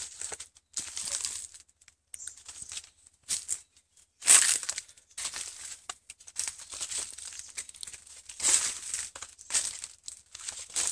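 Leaves rustling and crackling in irregular bursts, with brief silent gaps between them; the sharpest crackles come about four seconds in and again near eight and a half seconds.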